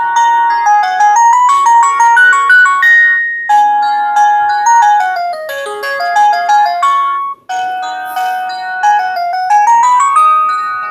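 Synthesized polyphonic ringtone melodies from the LG KG270 ringtone set, playing through an LG CU500 mobile phone's speaker. The tune breaks off briefly about three and a half seconds in and again about seven and a half seconds in, then starts again.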